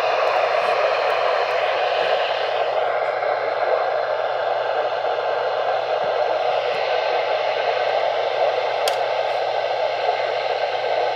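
Steady radio static hiss with a faint low hum underneath and a few faint clicks, no speech or tones on the channel.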